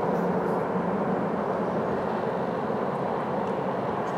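Dash 8 Q400 turboprop airliner's engines and propellers running steadily as it rolls along the runway after landing: an even drone over a broad rushing noise.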